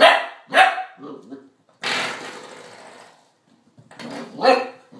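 Dachshund puppy barking in short bursts: two sharp barks at the start, a few softer ones, then more barks about four seconds in. A brief rush of noise fills the gap around two seconds in.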